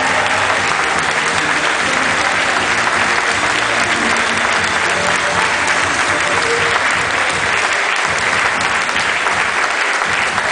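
Audience applauding steadily, with faint music underneath in the first few seconds.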